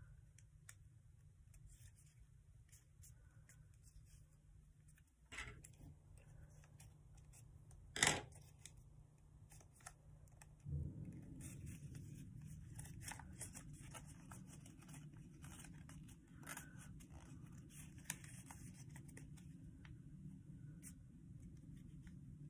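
Faint rustling, scratching and crinkling of folded notebook paper being worked by hand as a paper plane is shaped, with scattered small clicks; the sharpest comes about 8 s in. A steady low hum lies under it and gets a little louder about 11 seconds in.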